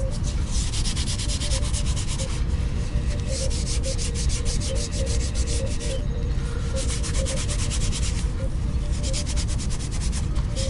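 Hand sanding of a tricorder prop body on a fine-grit abrasive pad: rapid back-and-forth scratchy rubbing strokes, pausing briefly a few times, smoothing the surface toward a polish.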